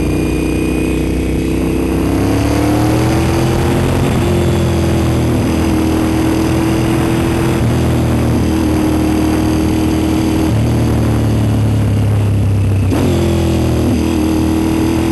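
Honda RC51 sport bike's V-twin engine running on the road, rising in pitch for a couple of seconds as it accelerates, then holding steady. Near the end the engine note drops out for a moment, as in a gear change, then picks up again.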